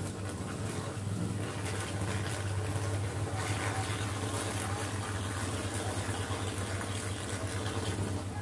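Electrical arc at the top of a power-line pole: a steady low buzz with irregular crackling and sizzling throughout as the live conductor arcs and throws sparks. It is the sound of a short-circuit fault that has not been cleared.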